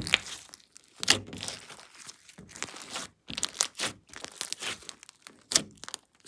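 Hands kneading and stretching thick glossy slime, giving sticky crackling and tearing sounds in irregular bursts as it is pulled apart and pressed down.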